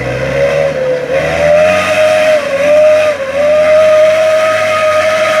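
Toyota light truck's engine pulling hard in deep mud, with a loud steady whine that sags briefly in pitch three times as the load changes.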